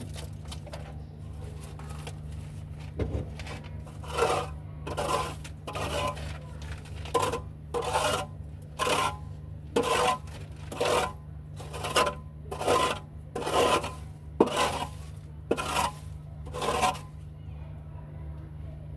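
Rhythmic scraping strokes, about one a second, of dirt being scraped or swept off a hard floor during cleaning. They start about four seconds in and stop near the end, over a steady low hum.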